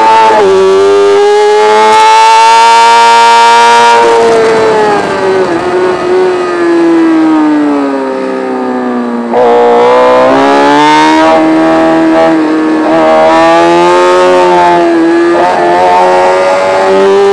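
Racing motorcycle engine heard on board at high revs. Its note climbs, falls away about four seconds in and slides down as the bike slows for a corner, then picks up sharply about nine seconds in as the throttle opens again.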